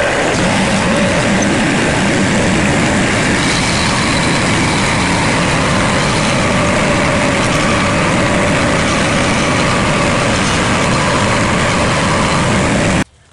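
Compact loader tractor's engine running steadily under the driver's seat as the tractor is driven across the field; the sound cuts off abruptly near the end.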